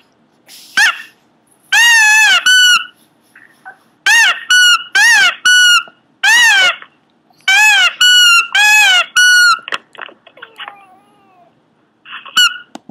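Pomeranian giving strings of high-pitched, squeaky cries, each rising and falling in pitch, in clusters separated by short pauses.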